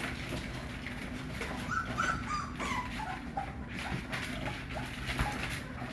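Young American pocket bully puppies whimpering, with a few short, high-pitched squeaks about two to three seconds in.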